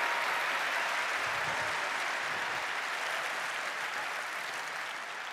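Large audience applauding, the applause slowly fading.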